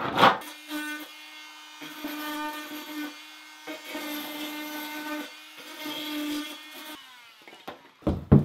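FEIN oscillating multi-tool buzzing as its blade plunge-cuts a square opening in a Wedi foam building panel, in several passes with short pauses, then stopping. A thump near the end.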